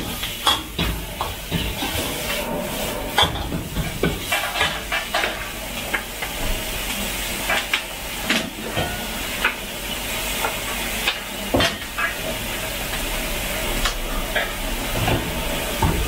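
Food sizzling in a steel wok over a gas burner as it is stir-fried with a metal ladle, the ladle scraping the pan and knocking against it at irregular moments.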